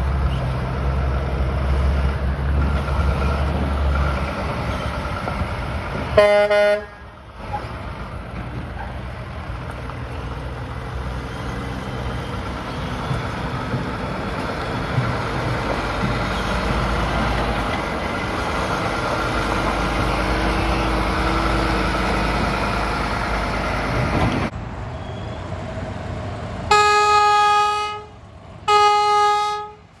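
Heavy diesel trucks pulling out and driving past with engines running. A short truck air-horn toot comes about six seconds in, and two longer air-horn blasts, about a second each, come near the end.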